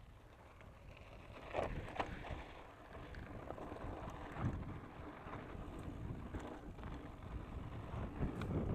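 Specialized Enduro Comp 650b full-suspension mountain bike riding down a dry dirt and gravel trail: tyre rumble and wind buffeting the camera microphone, with scattered sharp clicks and rattles from the bike over bumps.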